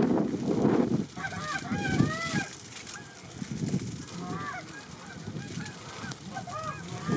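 A flock of geese honking, with many short overlapping calls from about a second in. Wind buffets the microphone at the start.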